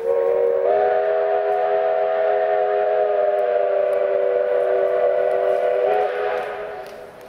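Approaching locomotive's whistle sounding one long chord of several tones. It steps up slightly in pitch just under a second in, then fades out near the end.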